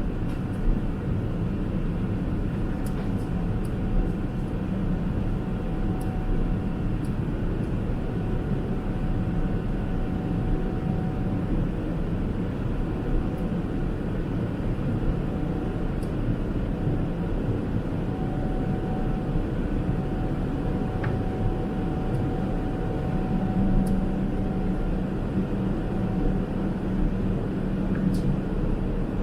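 Steady cabin noise inside a Boeing 777-300ER in flight: a constant rush of airflow and its GE90 engines, with a faint steady hum and a few small clicks.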